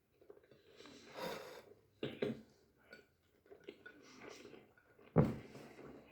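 A person chewing and biting into a doner kebab: irregular wet mouth sounds and breaths, with a sharp bite a little after five seconds in.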